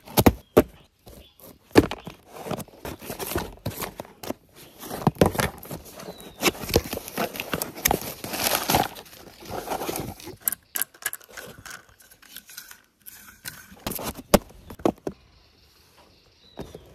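Cardboard boxes being opened and handled, with packing material rustled and crinkled by hand. Irregular rustling is broken by many sharp clicks and knocks, and it dies down near the end.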